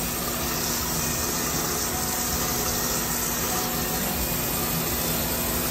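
Storm Vulcan 15AW crankshaft grinder running, its wheel grinding a rod journal of a 454 big-block Chevy crankshaft down .010 undersize. It makes a steady hiss over a steady low hum, and a higher hiss fades out about two-thirds of the way through.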